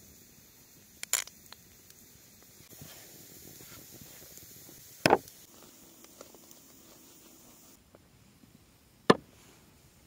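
Three sharp knocks about four seconds apart, the later two the loudest, as dough, a wooden board and wooden utensils are handled, with faint rustling between.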